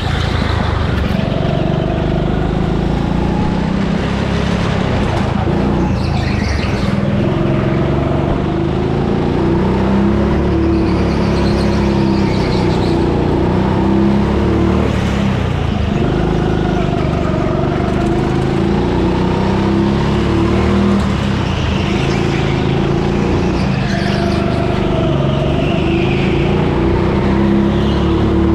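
A go-kart's motor heard from onboard while the kart is driven round the track, its pitch stepping up and down with speed through the corners.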